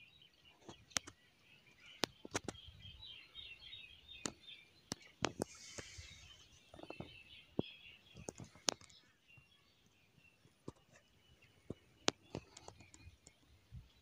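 Birds chattering in a dense twitter that thins out about nine seconds in, with scattered sharp clicks and ticks throughout, the clicks being the loudest sounds.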